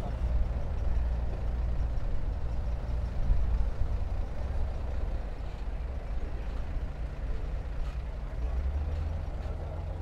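Heavy earthmoving machinery's diesel engine running with a low, steady rumble.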